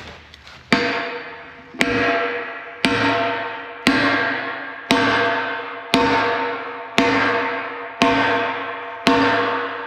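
Sledgehammer blows on steel, nine strikes about a second apart, each leaving a ringing tone that fades before the next: a chilled bushing being driven into a dozer blade's pin bore.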